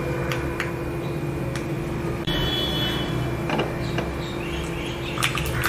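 Mustard seeds and urad dal frying in hot sesame oil for a tempering: a steady sizzle with scattered pops, the popping growing thick near the end as the mustard seeds start to splutter, the sign that the oil is hot enough and the tempering is nearly done.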